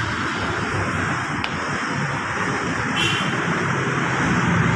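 Motor vehicle running steadily, a low hum under a wash of noise, with a short high squeak about three seconds in.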